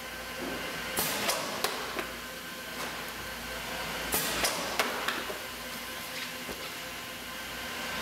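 Cardboard Saf-T-Pak STP-210 infectious-substance shipping box, frozen to −18 °C, dropped 1.2 m from a drop tester onto its impact plate: each drop is a quick cluster of three or four knocks and thuds as it is released, lands and bounces. It happens twice, about a second in and about four seconds in, with a third drop starting at the very end.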